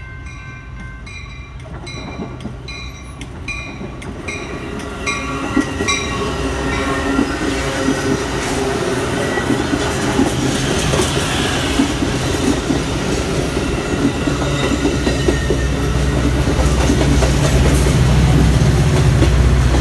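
Metra bilevel commuter train running past the platform, its wheels clattering on the rails and growing louder. A level-crossing bell rings steadily at first and is drowned out after about six seconds. Near the end the diesel locomotive pushing at the rear draws level, and its deep engine rumble becomes the loudest sound.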